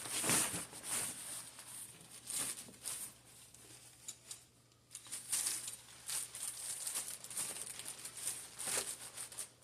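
Rustling and crinkling of packed bags being pushed and shifted into a backpack, in irregular bursts that stop near the end.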